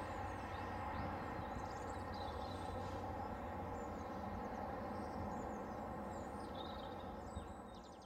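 Steady outdoor background noise with faint, high chirps from small birds scattered through it, fading out near the end.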